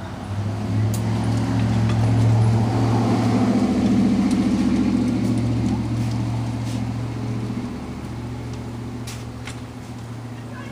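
A motor vehicle's engine running with a steady low hum, growing louder over the first couple of seconds and then slowly fading away.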